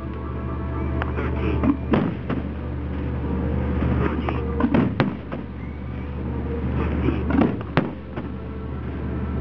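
Aerial firework shells bursting with sharp bangs that come mostly in close pairs every two to three seconds, over a steady low rumble.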